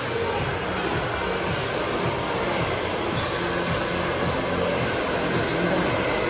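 Handheld hair dryer running steadily, blowing air onto a customer's hair during a blow-dry.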